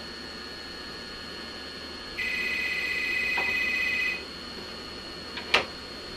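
Corded desk telephone's electronic ringer trilling for about two seconds, then two sharp clacks near the end, the louder one last, as the cat knocks at the handset.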